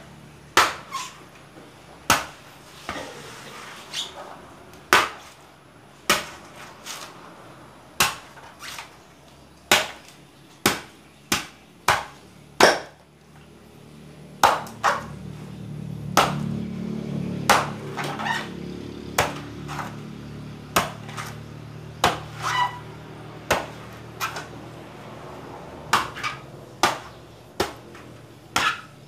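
Machete chopping the husk off a coconut on a concrete floor: sharp, irregular chops about one a second. A low steady hum rises and fades in the middle.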